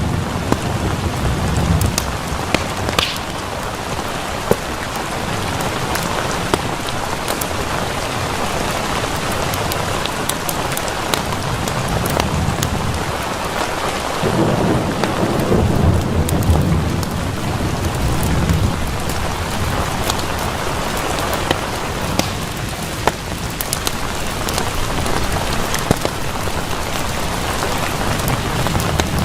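Steady rain with rolling thunder: a low rumble near the start and a longer one from about 14 to 19 seconds in. Scattered sharp clicks run through the rain.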